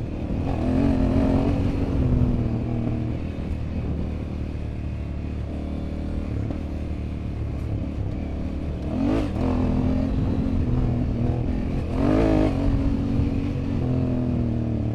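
Honda Africa Twin motorcycle engine running off-road, its revs rising and falling with the throttle about a second in, again about nine seconds in and about twelve seconds in.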